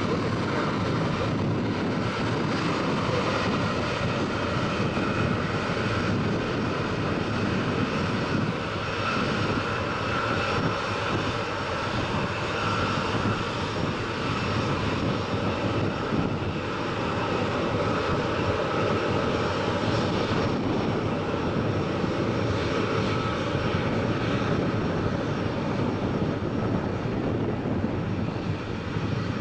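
Jet engines of an Etihad Airways Boeing 777 on final approach to land, a steady even jet noise that hardly changes over the whole stretch.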